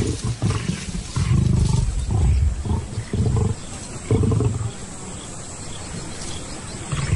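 Lions snarling and growling in a squabble over a carcass, a young male lion driving lionesses off the kill. Several loud outbursts come in the first four and a half seconds, then it goes quieter.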